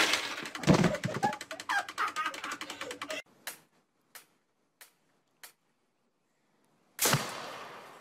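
Rapid clatter of small plastic pieces as a Perfection game board springs up, then after a cut a few sparse clicks about two-thirds of a second apart. About seven seconds in, a homemade PVC potato gun fires: a loud sudden blast that trails off over about a second.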